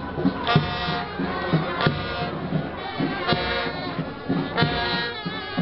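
Military band playing a slow funeral march: sustained wind-instrument notes over a slow, steady drum beat, a little under one stroke a second, with crowd noise beneath.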